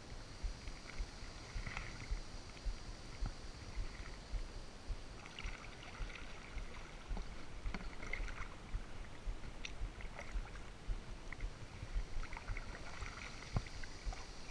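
Kayak paddling on calm water: paddle strokes dip and drip every few seconds, with small knocks and a low rumble of handling or wind on the microphone.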